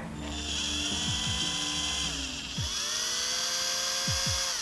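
Small electric rotary tool with a twist drill bit whining at high speed as it drills a hole through a small metal lure body. The whine winds down about two seconds in, spins back up and holds, then drops off near the end.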